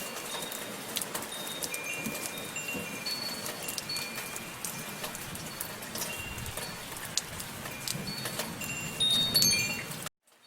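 Steady soft rain with many small drop patters, and wind chimes tinkling over it in short high ringing notes. The chimes grow busier and louder near the end, then all sound cuts off suddenly.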